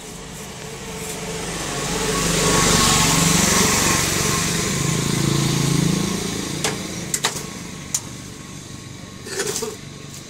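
A small engine passing by, growing louder over a couple of seconds, holding, then fading out over about six seconds. A few sharp clicks of bamboo strips being worked into the weave follow near the end.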